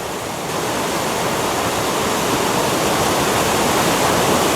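Creek water rushing and splashing over boulders in a steady roar, slowly growing a little louder.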